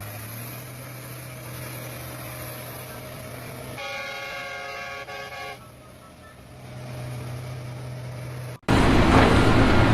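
A vehicle horn sounds once for about two seconds over a steady low engine hum. Near the end the sound cuts abruptly to a much louder, noisy vehicle rumble.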